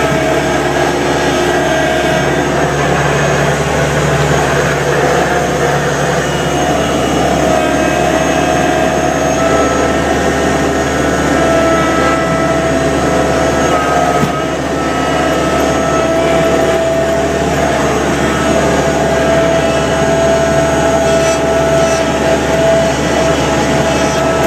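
Thomas 153 skid steer running steadily under load while pushing snow with a front blade, heard from inside its enclosed cab, with a steady whine over the engine noise.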